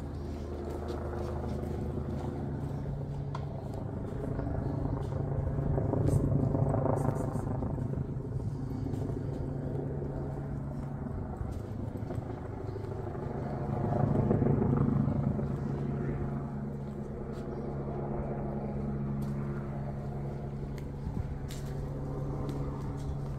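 Street noise: a steady low engine-like hum, with two vehicles passing, each swelling and fading, about six and fourteen seconds in.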